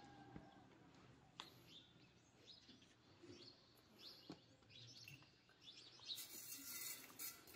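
Near silence with faint bird chirps, two soft knocks, and a brief hiss near the end.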